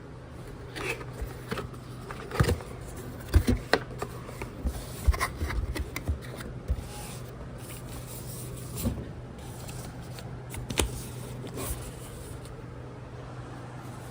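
Keyboard packaging being handled during unboxing: irregular knocks, clicks, scrapes and rustles, busiest in the first half, over a low steady hum.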